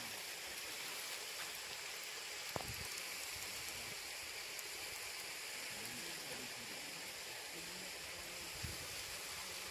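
Steady, even outdoor hiss, with a faint voice about six seconds in and a couple of soft clicks.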